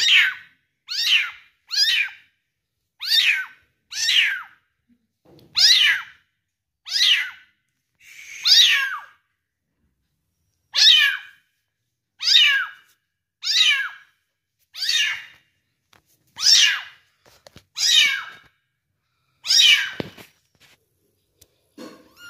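A one-month-old kitten mewing over and over, about fifteen short, high-pitched mews, each falling in pitch, roughly one a second with a brief pause midway.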